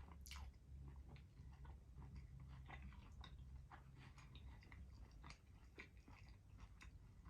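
Quiet close-miked chewing of a soft pita-wrapped sandwich: scattered small wet mouth clicks and smacks over a steady low hum.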